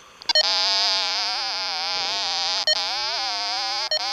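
VK3YNG Sniffer 4 fox-hunting receiver sounding a buzzy, steady pitched tone from its speaker while picking up the 2 m beacon through a tape measure Yagi. The pitch wavers up and down as the antenna is swung, following the received signal strength. It starts about a third of a second in and breaks off briefly twice.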